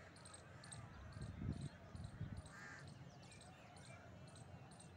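Quiet outdoor ambience: short high chirps repeat a few times a second, and a crow caws once about two and a half seconds in. A few soft low thumps sit underneath.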